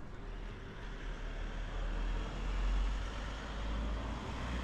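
Street traffic: a road vehicle passing, its noise swelling about two to three seconds in and then easing off, over a low rumble.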